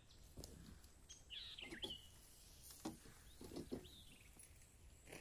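Quiet forest ambience with a few faint bird chirps, short calls sweeping downward in pitch, heard twice, and a few soft knocks in between.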